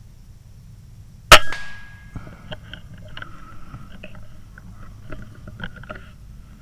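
A single shot from an FX Impact M4 PCP air rifle about a second in: one sharp crack with a short ringing tone after it, the shot that drops a squirrel. Faint scattered clicks follow.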